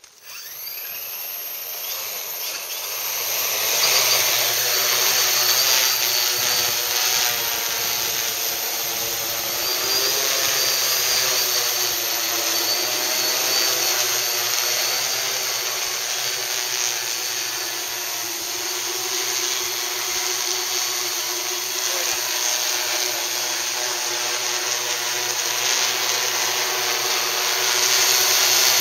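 Home-built octocopter's eight electric motors and propellers spinning up and lifting off, growing louder over the first few seconds. It then holds a steady buzzing whine as it hovers, its pitch wavering slightly as the motors adjust.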